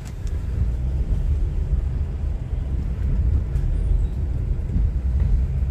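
Steady low rumble of a car's engine and road noise heard from inside the moving car's cabin.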